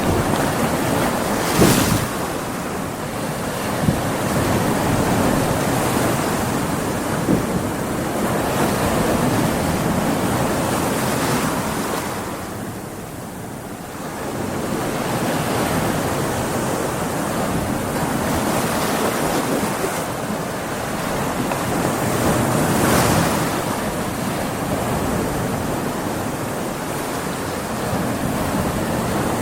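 Ocean waves breaking and washing on a beach in stormy weather, a continuous surf roar that swells and ebbs, with a brief dip in loudness about halfway through. Wind buffets the microphone.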